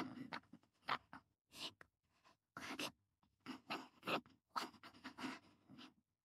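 Short, irregular rustles and scrapes of a cardboard pizza box being handled as a slice of pizza is pulled out of it.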